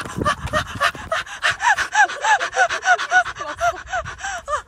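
A woman laughing hard in a rapid run of high-pitched squeals, about three to four a second, with gasping breaths between them.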